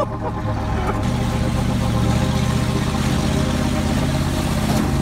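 1980 Dodge W200 Power Wagon's V8 engine running steadily.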